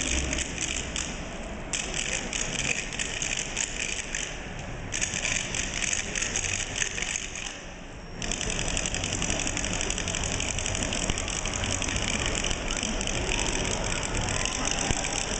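Several pairs of Turkish wooden spoons (kaşık) clacked together in a fast, dense rattle. It breaks off briefly a few times, then runs on without a pause from about eight seconds in.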